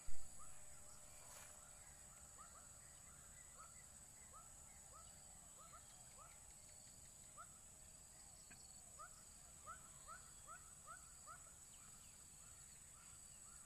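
Faint wildlife ambience by a pond: short rising chirps repeat irregularly, growing more frequent in the second half, over a steady high-pitched hum. A single sharp click comes right at the start.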